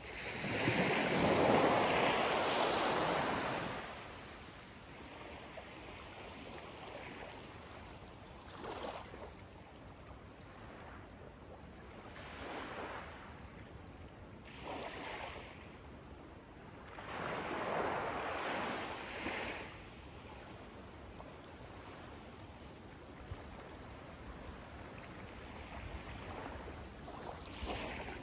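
Small waves lapping and washing onto a sandy beach along a calm bay, coming in as irregular surges. The biggest wash comes in the first few seconds, with another longer one about two-thirds of the way through.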